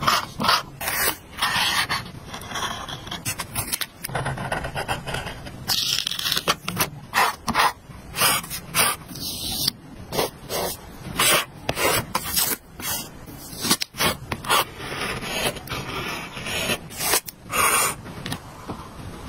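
Paper stickers being peeled off their backing with tweezers, then pressed and rubbed down by fingertip onto a paper journal page: a quick run of short scratchy peels, taps and rubs.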